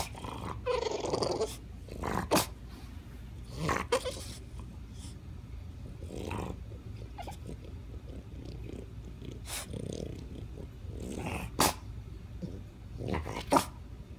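French bulldog whining and grunting in a frustrated tantrum at a toy he can't reach, with several short, sharp cries spread through.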